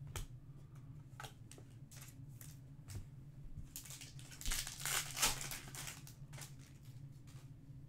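Foil wrapper of a Topps Chrome Match Attax trading-card pack crinkling and tearing as it is slit open with a thin metal tool, loudest about four to five and a half seconds in. Before that come a few light clicks and rustles of packs being handled, all over a low steady hum.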